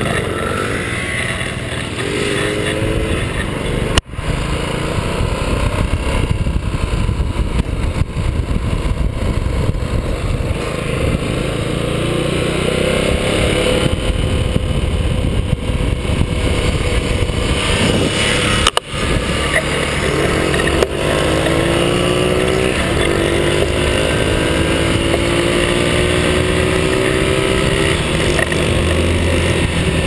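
Small motor scooters running as they are ridden, the engine note climbing in pitch several times in the second half as they accelerate. The sound breaks off briefly twice.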